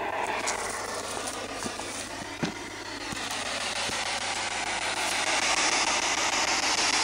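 Spirit box sweeping rapidly through radio frequencies, giving out a steady rush of radio static with wavering tones and occasional sharp clicks. The static grows louder over the last few seconds.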